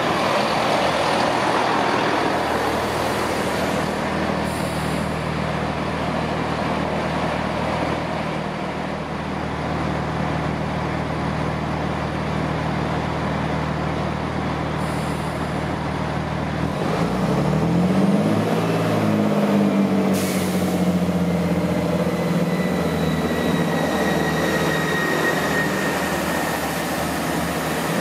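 Chiltern Railways diesel multiple unit idling at the platform with a steady engine drone and a couple of short air hisses. About 17 seconds in, its diesel engines rev up as it pulls away, and a rising whine builds near the end.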